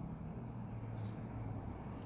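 Steady low background hum, with one faint light click about a second in, as of a small tool touching phone parts.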